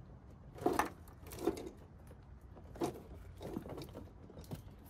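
Scattered light knocks and rustles, about five in all, as a car's wiring loom and its plastic plug connectors are handled and moved about.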